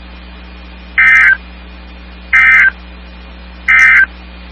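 Three short bursts of EAS/SAME digital data tones over NOAA Weather Radio, the End-of-Message (NNNN) signal that closes an alert. Each burst is a warbling two-tone data squeal about a third of a second long, about a second and a half apart, over a steady radio hum and hiss.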